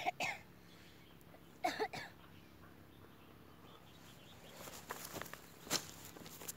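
A woman's short laughs twice in the first two seconds, then several sharp swishing strikes in the last two seconds as a long-handled blade slashes through dry grass.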